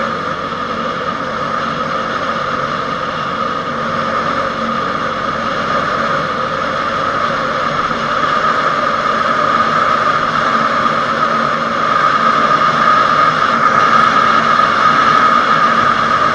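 Honda GL1100 Gold Wing's flat-four engine running steadily at road speed, mixed with steady wind and road noise picked up by a handlebar-mounted camera. It grows a little louder in the last few seconds.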